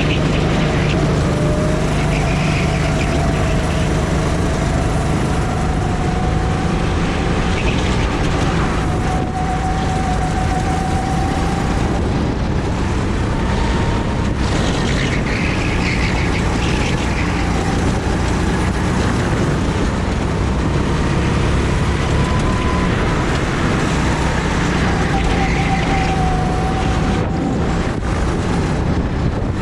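Steady, loud engine hum with a pitch that drifts slowly up and down, over a constant rushing noise.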